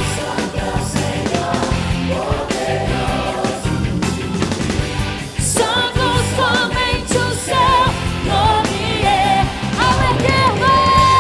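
Live gospel worship band playing, with drums throughout. From about halfway a lead voice sings a wavering line with strong vibrato, ending on a long held note near the end.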